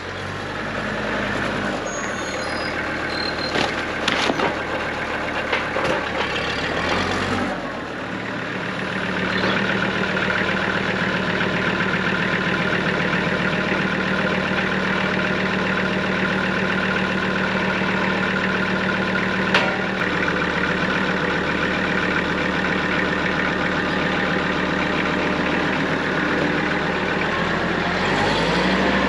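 Kubota M5700 tractor's diesel engine running steadily while its front loader works, lifting a sawn timber. The level dips briefly about eight seconds in, and the engine note rises near the end.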